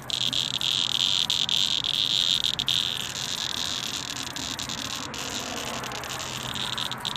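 Cicada singing: a continuous high-pitched buzz that weakens about three seconds in and swells again near the end.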